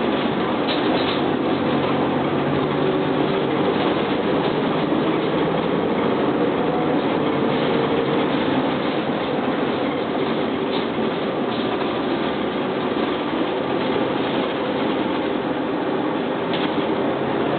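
Interior of a moving New Flyer D40LF transit bus: its Detroit Diesel Series 50 inline-four turbodiesel running steadily under an even drone of road and body noise, with a few faint rattles.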